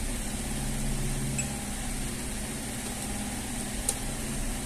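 Steady low background hum of a running machine, with a few faint light ticks and one sharper tick about four seconds in.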